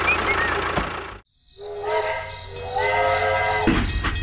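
A sudden cut to silence, then a sustained horn-like tone at one steady pitch for about two seconds, followed by a low rumbling noise near the end.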